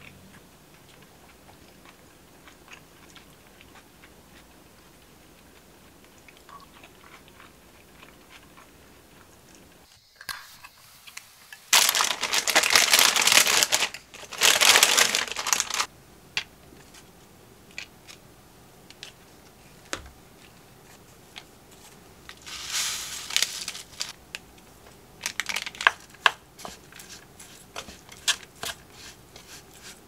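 Kitchen handling sounds: two loud stretches of crinkling packaging, each about a second and a half long, then brown rice tipped into a wooden bowl. Near the end a wooden spoon mixes the rice against the bowl, with a run of sharp light ticks.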